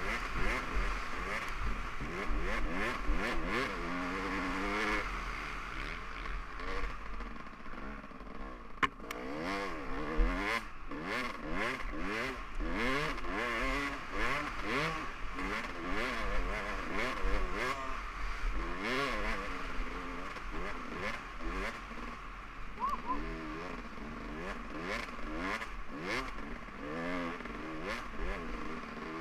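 2015 Kawasaki KX450F's single-cylinder four-stroke engine revving up and falling back over and over as the rider accelerates and shifts, with frequent knocks and rattles from the bike over the bumps.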